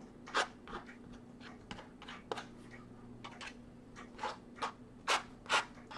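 Plastic credit card scraping and dragging through wet paint on a canvas in a series of short, quick strokes, about ten in all.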